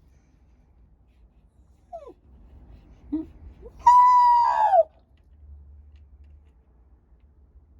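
Shiba Inu giving a short squeaky whimper, then one loud, drawn-out howling cry about a second long whose pitch drops at the end.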